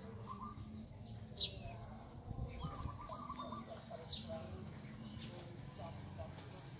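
Birds chirping outdoors: a handful of short, high, sweeping chirps and a few quick runs of lower repeated notes, over a steady low background rumble.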